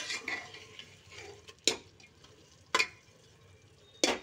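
A steel ladle stirring soaked whole brown lentils (masoor dal) in a steel pot, scraping through the mixture with three sharp clanks of metal on metal. The lentils sizzle lightly as they roast in the spice paste.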